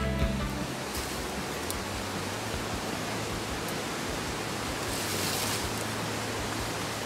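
Rushing mountain stream: a steady wash of white water tumbling over rocks, with a brief brighter hiss about five seconds in.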